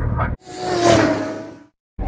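Steady boat noise cuts off abruptly, and an edited whoosh transition effect swells and fades over about a second, with a faint tone sliding slightly down under it.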